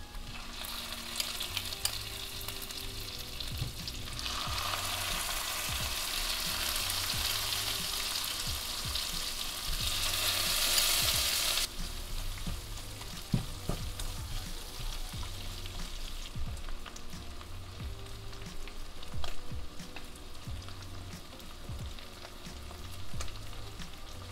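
Minced garlic and chilli flakes sizzling in butter in a nonstick frying pan while being stirred with a slotted spatula. The sizzle grows louder about four seconds in and stops abruptly near the middle. After that, shrimp are stirred through the sauce with a softer sizzle and light clicks of the spatula against the pan.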